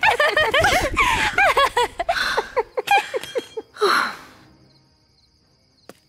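Cartoon voices laughing in a fast run of short rising-and-falling chuckles that fade out about halfway through, followed by a breathy sigh about four seconds in.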